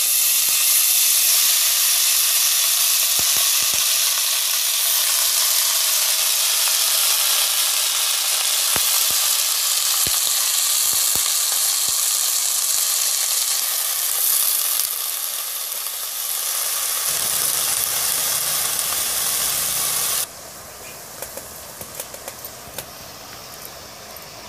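Shredded cabbage sizzling in hot oil in a kadai, a loud, steady frying hiss. About twenty seconds in it drops sharply to a quieter hiss with small clicks.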